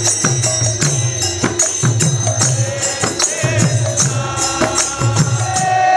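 Kirtan music: a mridanga drum beats a steady rhythm of about two deep strokes a second under jingling hand cymbals, harmonium and chanted singing. Near the end a held harmonium chord swells.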